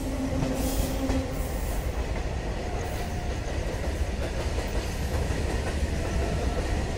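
Steady running rumble of a passenger train's wheels on the rails, heard from the open doorway of a moving coach.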